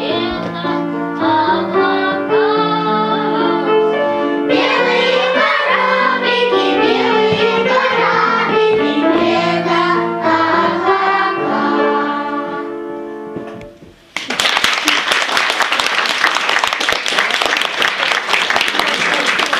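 Children's choir singing with instrumental accompaniment; the song fades out about fourteen seconds in and an audience breaks into steady applause.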